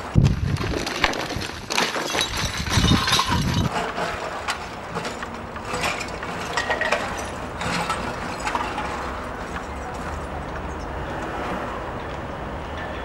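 Outdoor urban background noise with scattered knocks, clicks and clinks, and a few heavy low thumps in the first few seconds, settling into a steadier hum.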